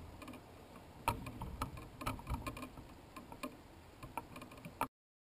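Irregular sharp clicks and light knocks, a few a second, over a low rumble, from a GoPro wedged in a styrofoam block creaking and knocking in its mount as it hangs from helium balloons. The sound cuts off suddenly near the end.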